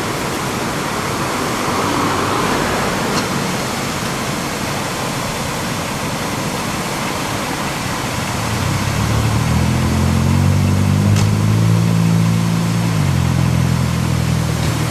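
Water gushing steadily from a knocked-over fire hydrant, a continuous rushing spray. From about nine seconds in, a vehicle engine runs over it for several seconds, dropping in pitch near the end.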